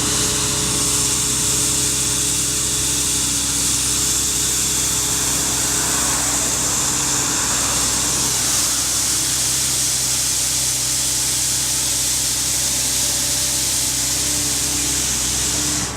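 Sweeper broom attachment on an engine-driven machine, brushing the road surface: a steady engine hum under a loud, even hiss that runs unbroken.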